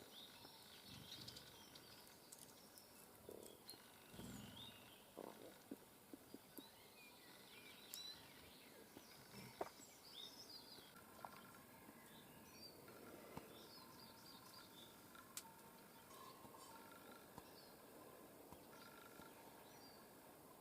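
Small songbirds chirping and calling faintly, many short high notes scattered throughout, with a few sharp clicks.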